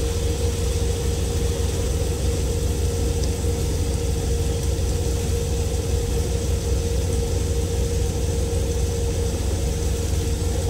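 Semi truck's diesel engine idling, a steady low rumble heard inside the cab with a constant hum over it.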